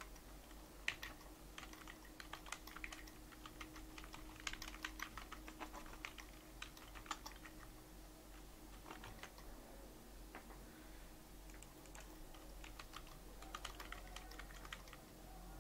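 Computer keyboard being typed on in short bursts of keystrokes with pauses between, faint, over a low steady hum.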